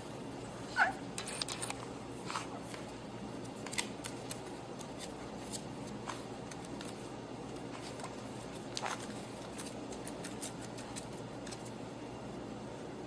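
A puppy's paws and claws clicking and tapping on a laptop's keys and case as it walks across the keyboard: scattered light clicks over a faint hiss, the loudest about a second in.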